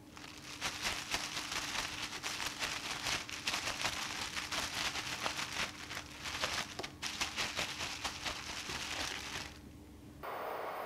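Thin plastic bag crinkling and rustling as pieces of salmon are shaken inside it with a powder coating, going on for about nine seconds and then stopping. Near the end a steady hiss of hot frying oil begins.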